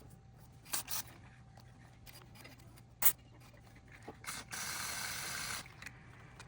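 An aerosol spray can gives a steady hiss about a second long, a little past the middle. It comes after a few sharp clicks and taps of small parts being handled.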